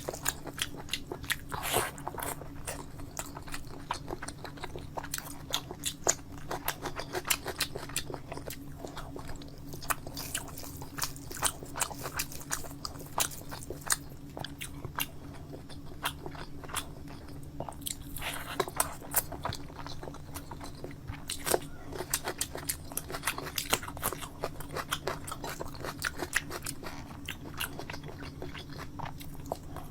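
Close-miked eating: a person chewing and biting, with many irregular sharp wet mouth clicks and smacks, over a steady low hum.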